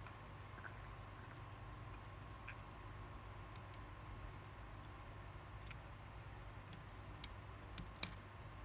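Faint, irregular clicks of steel tweezers against small parts of a disassembled automatic watch movement, with a few sharper clicks bunched near the end, the loudest a little before it.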